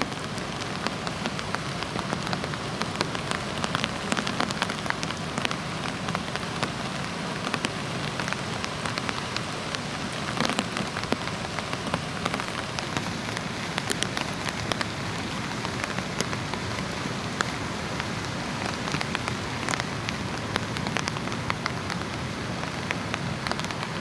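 Steady hiss and wash of waves breaking on a sandy beach, thick with small sharp crackles.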